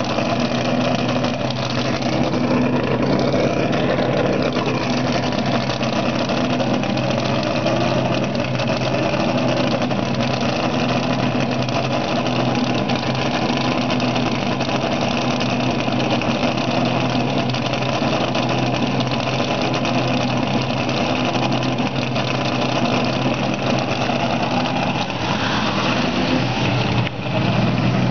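A vehicle engine idling steadily, with a brief dip in the sound near the end.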